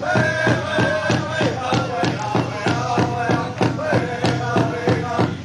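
Pow wow drum group: a large hand drum struck in a fast, steady beat while the singers chant in high voices, their phrases falling off at the ends.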